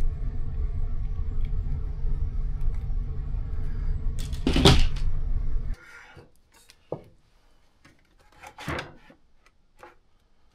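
A steady low background sound with a loud rustle about four and a half seconds in cuts off suddenly a little past halfway. After it come faint scattered clicks and light knocks of Bambu Lab A1 printer parts being handled and fitted.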